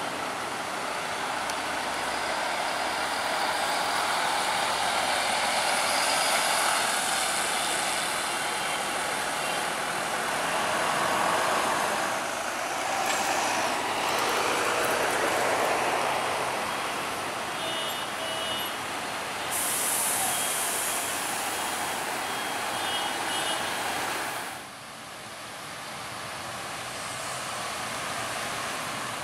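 MAN NL323F city bus's diesel engine pulling away and driving past, rising and falling in loudness, with a few short high beeps near the middle and a sudden drop in level about three-quarters of the way through.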